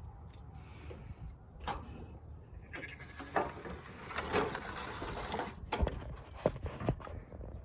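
Sheep bleating, loudest in the middle, with a few sharp knocks.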